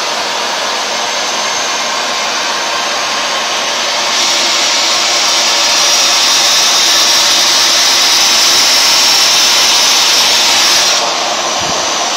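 Hoover Dual Power Max carpet washer running on a rug, a loud steady motor whine with a hiss. From about four seconds in the hiss grows louder and brighter, then drops back to the earlier level near the end.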